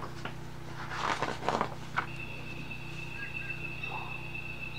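A large page of a hardcover picture book being turned by hand: paper rustling and flapping for about a second, with a tap as it lands about two seconds in. Right after, a faint steady high tone comes in, with a few faint chirps.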